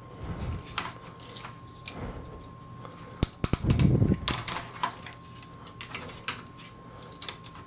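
Hard plastic toy parts clicking and knocking as an action figure is handled and set on its display stand, with irregular clicks and a busier run of clicks and knocks about halfway through.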